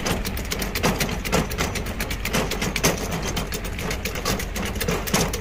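2-ton hydraulic trolley jack being pumped up by its handle, the lift arm rising: a fast, uneven run of clicks and rattles from the pump and handle.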